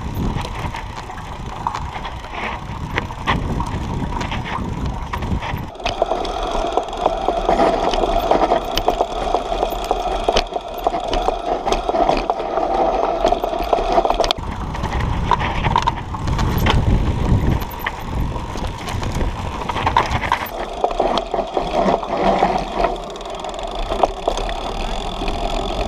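Mountain bike rolling slowly down a dirt trail: tyres crunching over dirt and loose stones, with the bike rattling and knocking over the bumps throughout.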